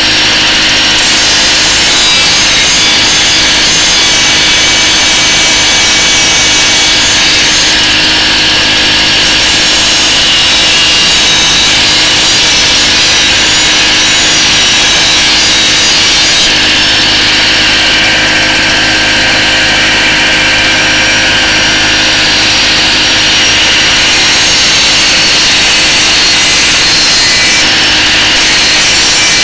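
Angle grinder grinding the edge of a steel lawn mower blade, running continuously with the high grinding hiss growing and easing every several seconds, over the steady hum of the generator that powers it.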